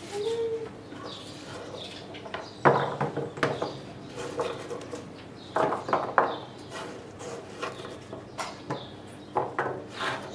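Carrot slices being set and dropped one by one onto a baking tray: an irregular scatter of short light taps and knocks, several in quick clusters.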